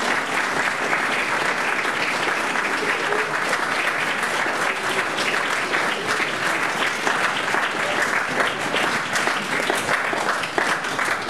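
Audience applauding steadily: dense, even clapping that goes on without a break.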